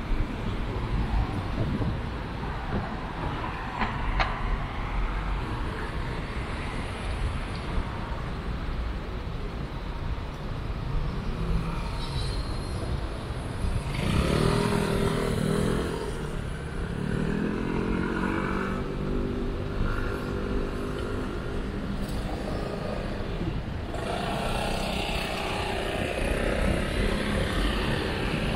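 City street traffic: vehicles driving past with a steady rumble of engines and tyres. About halfway through, one vehicle's engine note comes up close and rises in pitch as it pulls away.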